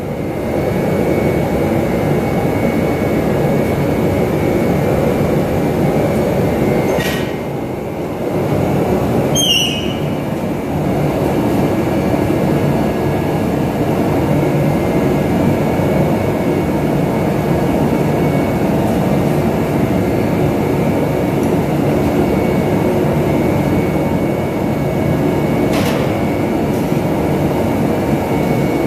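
Loud, steady roaring machine noise with a faint high steady whine, broken by a few short sharp knocks: one about seven seconds in, another a couple of seconds later, and one near the end.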